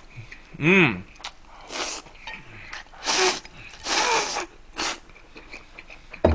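A person slurping noodles and cold noodle broth from a bowl: several short, loud slurps about a second apart, with a brief hummed 'mm' about a second in.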